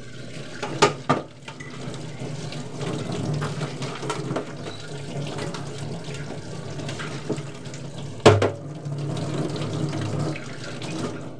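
Water running from a kitchen tap into the sink as hands are washed under it, with sharp knocks about a second in and again about eight seconds in.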